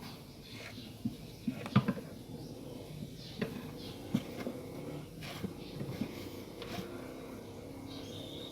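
Light, irregular knocks and clicks from hands working on a subwoofer cabinet and its speaker parts.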